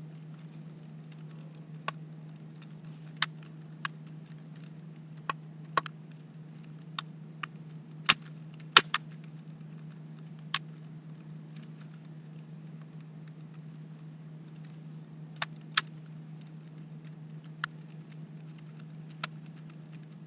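Computer keyboard keystrokes, single sharp clicks at an irregular, slow pace, about fifteen in all with a bunch of them in the middle, over a steady low electrical hum.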